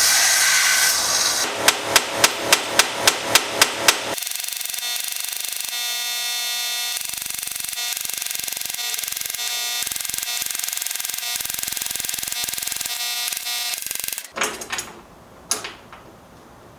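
Metal restoration work: a loud hiss, then about nine evenly spaced hammer strikes, about four a second. A long steady whirring follows, ending in a few knocks.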